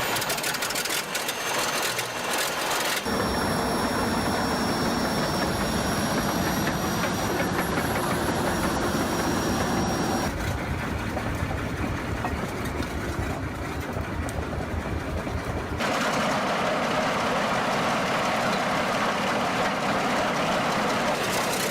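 Large diesel engine running, heard in several segments that change abruptly a few seconds apart.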